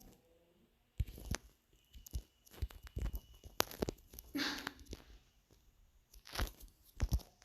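Scattered clicks and knocks of objects being handled, with a short rustling, scraping burst a little past the middle.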